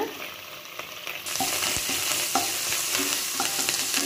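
Hot oil sizzling in a metal kadai as curry leaves fry with whole spices and ginger-garlic paste, with a metal ladle stirring and tapping in the pan. The sizzle grows louder about a second in.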